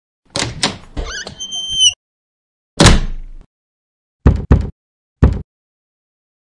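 Knocks and thuds against a door: a few light knocks and a short rising squeak in the first two seconds, then four louder thuds about a second apart, with dead silence between them.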